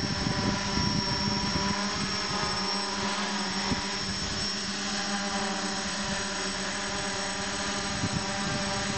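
Hexacopter with six Turnigy Park 450 brushless motors hovering low: a steady whir of motors and propellers made of several close tones that waver slightly in pitch. Wind rumbles on the microphone underneath.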